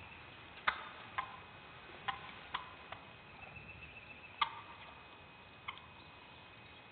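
About seven short, sharp turkey clucks, faint and irregularly spaced, over a faint steady high hum.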